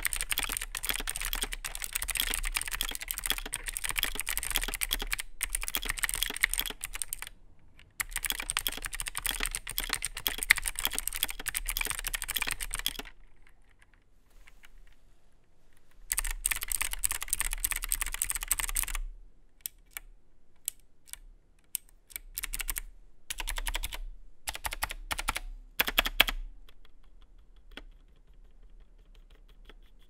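Typing on a Tesoro Excalibur SE Spectrum keyboard with clicky, tactile Gateron-made optical blue switches. Fast continuous clicking for about thirteen seconds, a pause of about three seconds, another fast burst, then single key presses spaced out over the last ten seconds.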